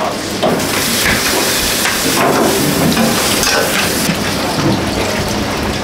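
Restaurant kitchen noise: a steady frying hiss with clinks and knocks of stainless plates and ceramic bowls being set onto serving trays.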